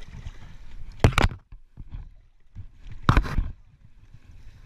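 A hooked musky thrashing at the water's surface beside a kayak: two loud splashes about two seconds apart.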